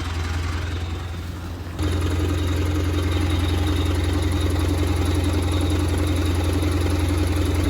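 Mitsubishi Pajero IV's 3.2-litre four-cylinder turbodiesel idling steadily. About two seconds in it gets louder and a steady whistle sounds over the engine: the strange whistle whose cause is unknown.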